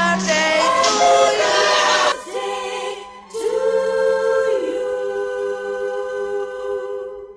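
Choir-style singing in harmony, ending on a long held chord that fades out near the end.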